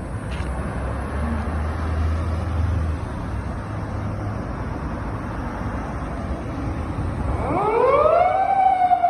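Steady traffic noise with a low engine hum. About seven and a half seconds in, a Toyota Crown 210-series police patrol car's siren switches on: its wail rises steeply, then holds high. The siren signals the car to pull over a driver who ran a red light.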